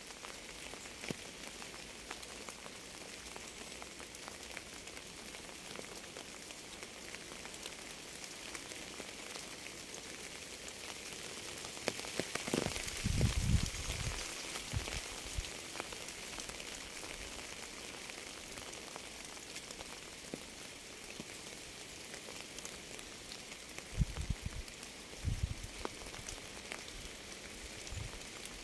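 Steady rain falling on a surface, an even hiss with many separate drops ticking. A few short low thumps come through it, a cluster about halfway and another a few seconds before the end.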